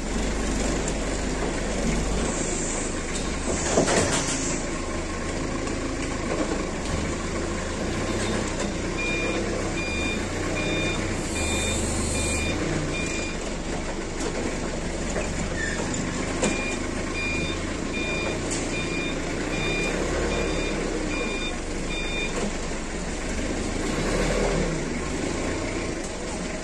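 Forklift engine running steadily while its reversing alarm beeps about twice a second, in two spells of several seconds each. A brief, loud rush of noise comes about four seconds in.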